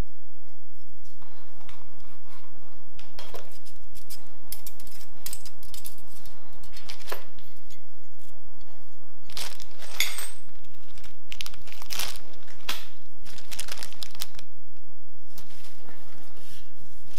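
Packing paper and plastic wrap rustling and crinkling as parts are handled out of a cardboard box, in irregular crackles that are busiest in the second half. Underneath is a steady low background noise.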